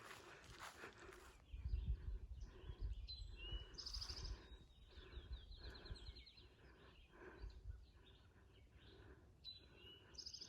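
Footsteps of a hiker walking along a woodland trail at a steady pace, with songbirds singing: a fast trill of repeated high notes a few seconds in and another short call near the end. A low rumble, like wind on the microphone, is mixed in under the first few steps.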